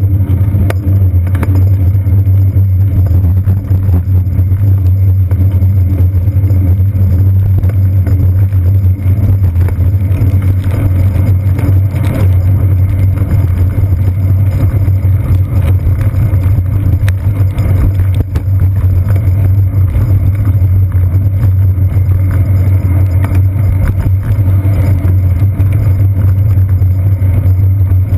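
Steady low rumble of a bicycle ride over wet city streets, picked up by a GoPro camera mounted on the seat post: road vibration and wind on the camera, with muffled city traffic and a few short knocks.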